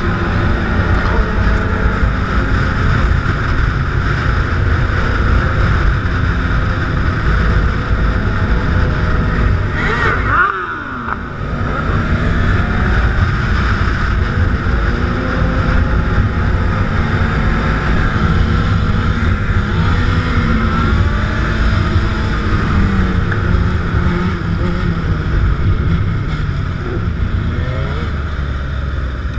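Sport motorcycle engines running at road speed with heavy rumble and wind noise on the microphone, engine pitch rising and falling as the riders work the throttle. About ten seconds in there is a brief dip in level with a quick sweep in pitch.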